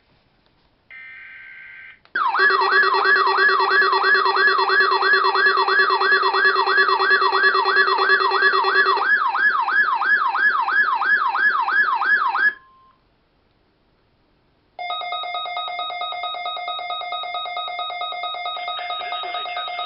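Midland WR-120EZ weather radio alerting for the required weekly test. A short buzzy tone comes first, then the radio's electronic siren alarm warbles about two and a half times a second and cuts off suddenly about twelve seconds in. After a brief silence a steady alert tone comes on.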